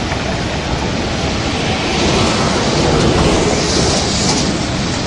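Seti River in flash flood: a fast, muddy torrent carrying debris, heard as a steady loud rush of water that swells a little midway.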